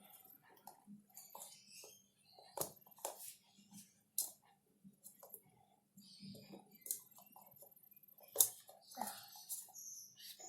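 Small plastic toy pieces and containers being handled: scattered clicks and taps with light scraping between them, and three sharper knocks, the loudest near the end.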